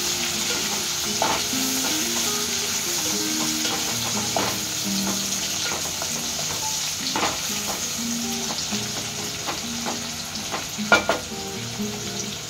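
Sliced onions and whole spices sizzling steadily in hot oil in a metal pot as they are browned, stirred with a wooden spatula that now and then knocks and scrapes against the pot, the sharpest knock about eleven seconds in.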